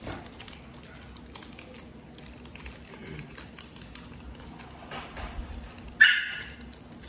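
A dog barks once, sharp and loud, about six seconds in, over faint rustling from handling cards.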